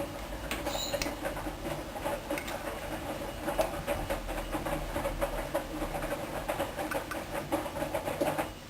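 Hoover DYN 10124 DP washing machine drum turning in a wash cycle, the wet laundry tumbling with an irregular patter of soft knocks and sloshes over a motor hum. The drum stops suddenly near the end.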